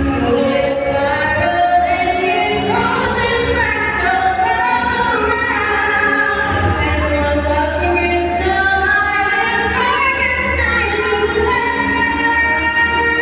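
A female voice singing a slow melody live over amplified backing music with a steady bass.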